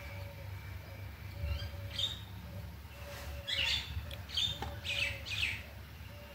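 Birds chirping in short bursts, most of them in the second half, over a low steady hum.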